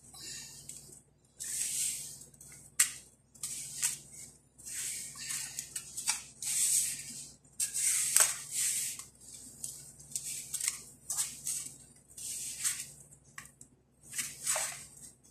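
Hands mixing and kneading crumbly flour dough in a stainless steel bowl: repeated gritty rustling swishes, roughly one a second, with a few sharp ticks against the bowl.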